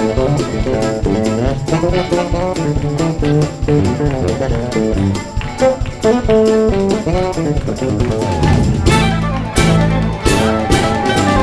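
Background music led by plucked guitar with a bass line, busier and more rhythmic near the end.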